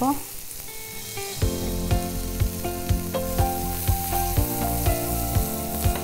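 Sliced mushrooms and bell peppers sizzling as they sauté in oil and butter in a pan, turned with a wooden spatula, over background music with a steady beat.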